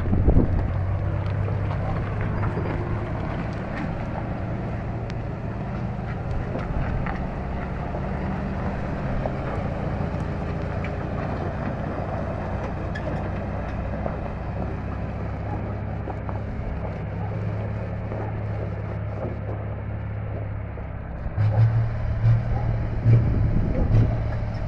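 An M813 6x6 truck's Cummins 250 inline-six diesel runs steadily as the loaded truck drives off. Wind buffets the microphone in the last few seconds, and the sound grows louder and uneven there.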